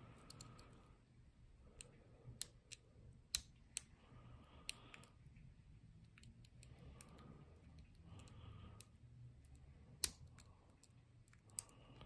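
Hook pick and tension wrench working the pin stack of a four-pin Lockwood 30mm padlock: faint, irregular metallic clicks and ticks as the pins are felt one by one, the sharpest about three and a half and ten seconds in.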